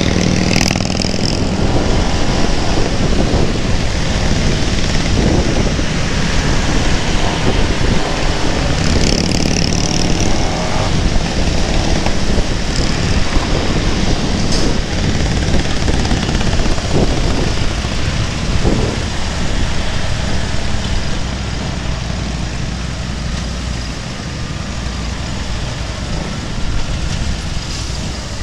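Motorcycle engines running at riding pace: big Harley-Davidson V-twin touring bikes just ahead and the rider's own Keeway V250 V-twin. The sound eases off a little over the last several seconds.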